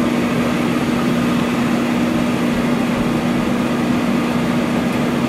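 Money booth's air blower running steadily: a loud, even rush of air with a steady hum, blowing loose paper bills around inside the clear booth.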